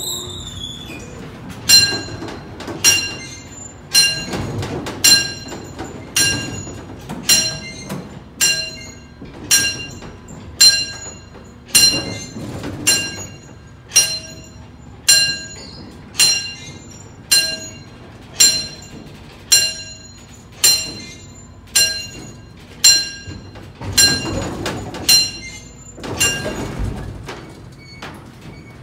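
Vintage 1920s Otis freight elevator car travelling, with a sharp ringing metallic clink about once a second over a low rumble that swells at times.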